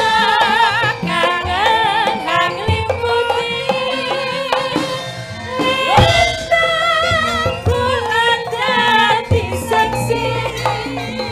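Javanese sinden singing into microphones with a wide vibrato, over gamelan accompaniment with steady hand-drum strokes.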